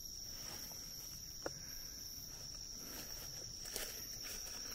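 Faint, steady high-pitched trilling of night insects in the woods, with a single short click about a second and a half in and a soft rustle near the end.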